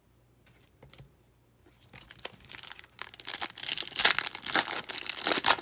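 Foil trading-card pack wrapper crinkling as it is torn open and crumpled: a dense crackle that starts about two seconds in and grows loud.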